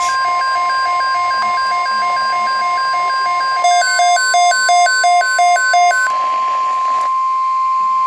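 NOAA Weather Radio's steady warning alarm tone from the broadcast, held throughout, over the Midland weather radios' own alert beeping: a repeating two-note beep, then a louder, faster beeping of about four beeps a second that stops about six seconds in. This is the alert sequence that comes just before the spoken watch message.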